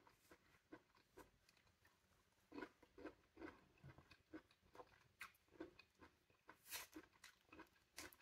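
Faint eating sounds of a pomelo: soft chewing and scattered small clicks and crackles as the segment membranes are peeled off by hand.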